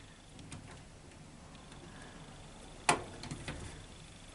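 Light clicks and taps of a plastic washing machine door latch being handled and pushed into place, with one sharp click about three seconds in followed by a few small ticks.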